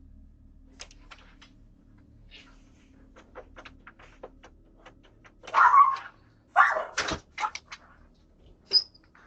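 Knocking and banging on a front door, picked up by a doorbell camera's microphone: scattered knocks, then two loud bursts of noise a little past halfway and a sharp knock near the end.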